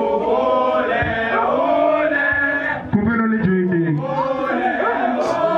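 A group of people singing together, many voices chanting a song in chorus.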